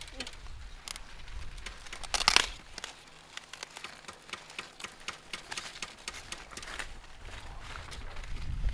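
Maize leaves and husks rustling and crackling as they are handled, in irregular dry rustles and clicks, with a louder crackling tear about two seconds in.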